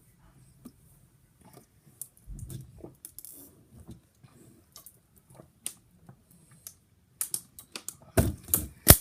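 Plastic water bottle crackling and clicking as it is squeezed while being chugged. The crackles come sparsely at first, then thick and loud near the end.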